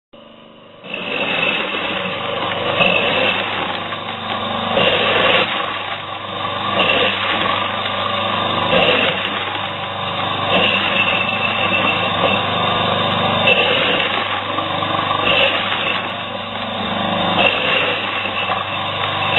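Corn sheller machine running with a steady mechanical noise. It comes up to full level about a second in, with a brighter surge about every two seconds.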